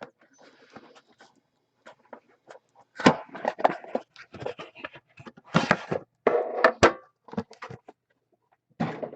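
Crinkling, scraping and clicking of a trading card box's packaging and plastic card holders being opened and handled, in irregular bursts, busiest in the middle and again near the end.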